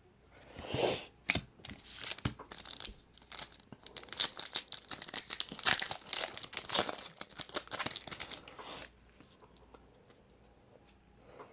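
A baseball card pack's wrapper being torn open and crinkled in the hands, a dense run of crackling and rustling that stops about nine seconds in.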